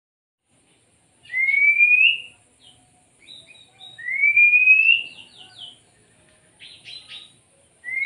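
Oriental magpie-robin singing: three long rising whistles, the last near the end, with short whistled notes and a brief harsh chatter between them.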